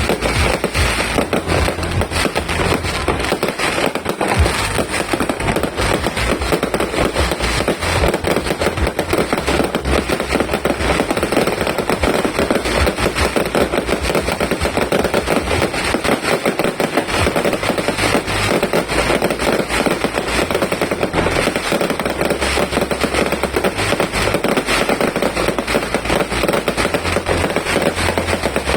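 A multi-shot fireworks cake firing in a dense, unbroken barrage of rapid cracks and pops, far too fast to count, at an even loudness.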